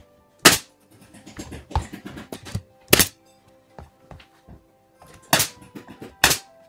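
Four sharp knocks one to two and a half seconds apart, with fainter knocks between them, over background music with held notes.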